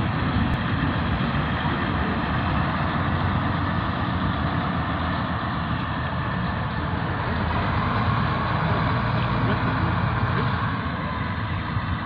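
Small diesel shunting locomotive's engine running with a steady low drone.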